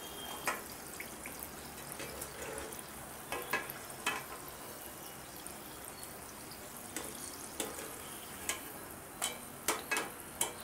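Hot oil sizzling steadily as bedmi puris deep-fry in a kadhai, with scattered light clicks of a wire skimmer against the pan as the puris are turned and lifted out.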